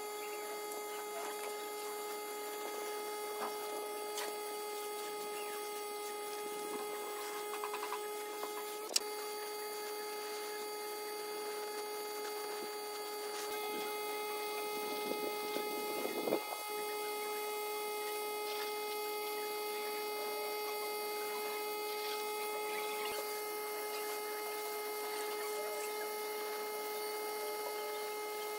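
A small electric motor running steadily with an even whine, with one sharp click about nine seconds in and a brief scraping where the whine dips for a moment just past the middle.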